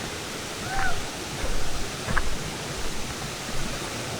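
Steady rushing of flowing water, like a stream or waterfall, with soft swells in loudness about every three-quarters of a second.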